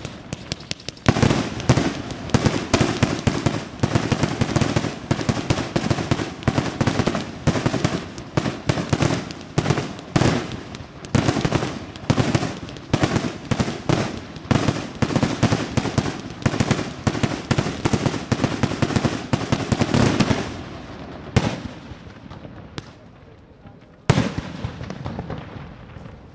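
Daytime firework battery (cake) firing a rapid run of sharp bangs, several a second, each shot bursting with a report. The run ends about 20 seconds in, followed by a few separate bangs.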